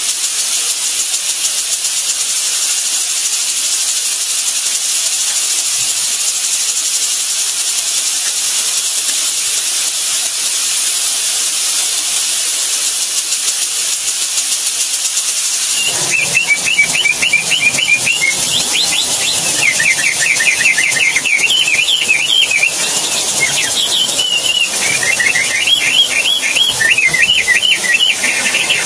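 A steady high hiss runs throughout. About halfway in, weaver birds (manyar) start rapid chattering calls over it, in quick runs of notes.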